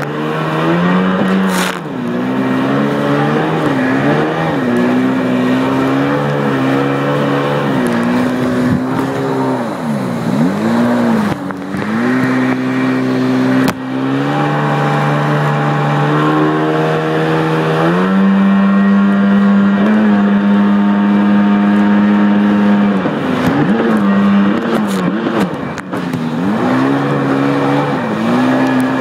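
1993 Sea-Doo XP personal watercraft's two-stroke engine running under way, its pitch rising and falling as the throttle is opened and eased off, with a few sharp drops and a stretch held high and steady past the middle. A rushing hiss of water and air runs under it.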